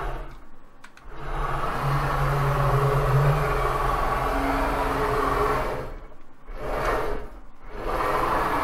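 Homemade CNC router's servo motors driving the axes through rapid moves at 250 inches per minute: a steady whine with pitched tones, stopping briefly between moves, once near the start and twice late on. The owner finds the motion smooth, with no binding or jerkiness.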